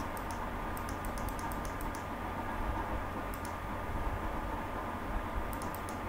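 Light clicking from operating a computer: a quick run of small ticks about a second in, then a few scattered clicks, over a steady low hum.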